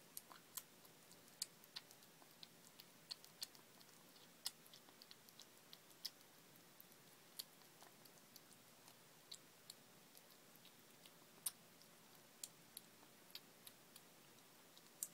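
A kitten eating wet food from a plate: faint, sharp, irregular clicks of its chewing and licking, about two or three a second, against a quiet room.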